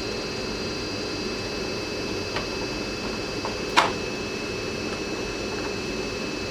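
Steady background hum with a few light clicks and one sharper click just under four seconds in, from a hand Phillips screwdriver working the screws out of the headlight surround.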